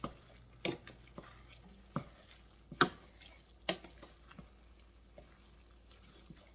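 A utensil stirring a ground chicken and sauce mixture in a pan, knocking and scraping against the pan about once a second, with a faint sizzle underneath.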